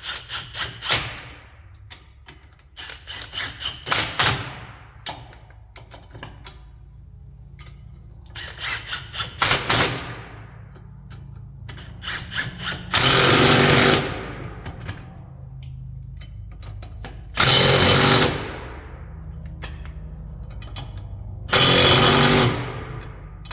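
Bolts being tightened with power tools. First come several short runs of rapid clicking, then three bursts of about a second each from an impact wrench: one about 13 seconds in, one about 17 seconds in and one near the end.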